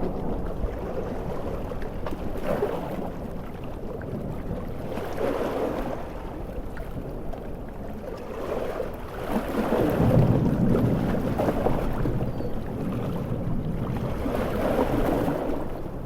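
Heavy surf in a storm: ocean waves surge and break in swells every few seconds over a steady wash of rain. The deepest and loudest surge comes about ten seconds in.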